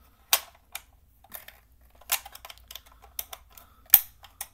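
Hard plastic clicks and taps from a 1:16 Bruder Land Rover toy being handled and turned over in the hands, coming irregularly, with the sharpest click near the end.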